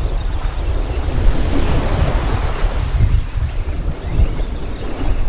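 Small waves washing onto the beach, with wind buffeting the microphone in a steady low rumble. A louder wash of surf swells and fades about two seconds in.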